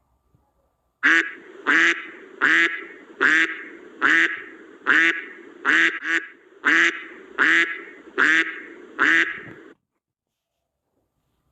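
Duck quacking in a steady series of about a dozen loud quacks, roughly one every 0.7 seconds, then cutting off near the end.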